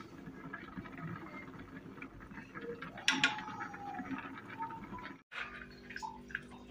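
Metal fork scraping and tossing cooked rice in a pot: a run of light scratchy clicks of grains and fork against the pot, with one sharper scrape or clink about three seconds in. After a brief dropout near the end, a steady background tone sets in.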